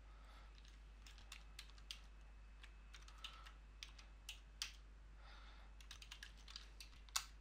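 Computer keyboard being typed on: faint, irregular keystroke clicks scattered through, with one louder keystroke near the end.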